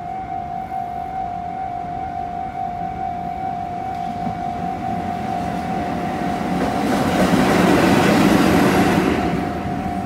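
Railway level-crossing warning bell ringing steadily in a fast repeating tone as a freight train's locomotive passes over the crossing. The train's rumble and wheel noise build from about six seconds in, are loudest around eight seconds and ease off near the end.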